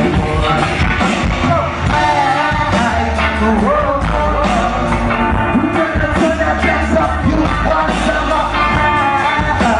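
Live rock band playing loudly, with a male lead singer over electric guitar, keyboard, bass and drums, heard from within the crowd.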